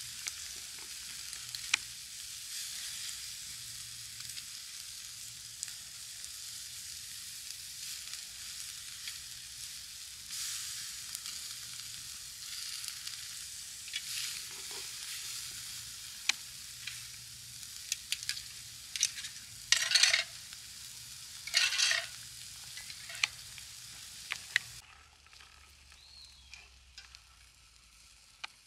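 Marinated chicken sizzling on a steel mesh grill over a campfire, with sharp clicks of a metal utensil on the grate as pieces are turned. The sizzle swells louder twice, about twenty and twenty-two seconds in, then drops off suddenly near the end to a quieter sizzle.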